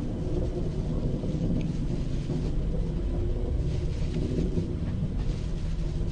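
H-IIA 202 rocket climbing on its LE-7A first-stage engine and two solid rocket boosters, heard as a steady, low rumble.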